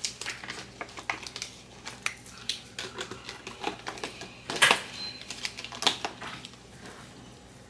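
Irregular small clicks and smacks of someone eating sushi by hand, with a couple of louder ones about four and a half and six seconds in.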